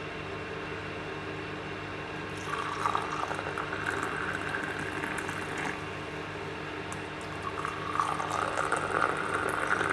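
Hot milky chai being poured from the pan into cups, two separate pours, one beginning about two and a half seconds in and the next about eight seconds in, over a steady low hum.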